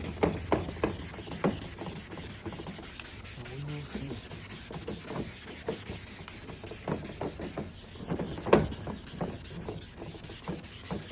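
Wet-sanding a headlight lens by hand with 400-grit sandpaper to strip the old, chipped clear coat: repeated uneven rubbing strokes, about two a second, with one louder stroke near the end.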